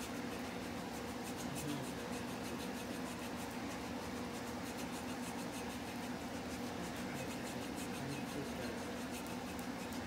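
Hands massaging a bare foot, skin rubbing with soft scratchy strokes over a steady low hum.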